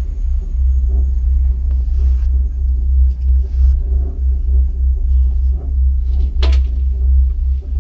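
Steady low rumble of a moving gondola cabin riding along the cable, with a brief high squeak about six and a half seconds in.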